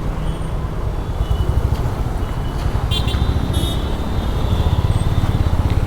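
Motorcycle riding noise from a Honda CB350RS's single-cylinder engine, a steady low rumble of engine and wind on the mic. A few brief faint high tones come through about halfway.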